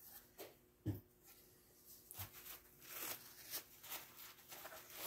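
Faint, scattered light knocks and rustles, a few separate ones in the first second and then a looser run of them.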